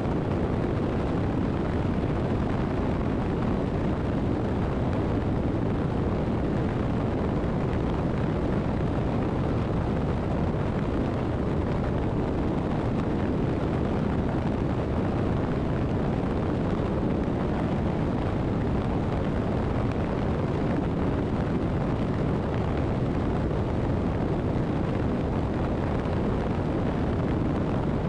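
Motorcycle cruising at steady highway speed, heard as a constant rush of wind buffeting the camera microphone with road and engine noise underneath.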